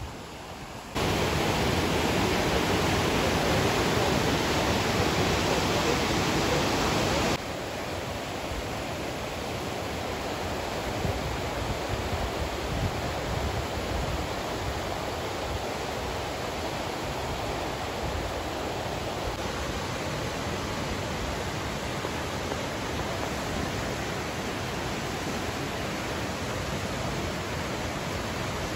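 Rushing white water of Johnston Creek pouring through the canyon, a steady noise of fast-flowing water. It jumps up suddenly about a second in, then drops to a lower steady level about seven seconds in.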